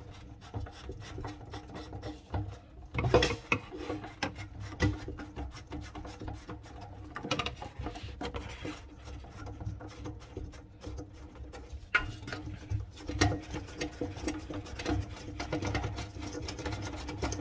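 Hand-threading a plastic nut onto a faucet fitting under a kitchen sink, with plastic parts scraping, rubbing and clicking irregularly. A couple of louder knocks come about three seconds in and again about thirteen seconds in.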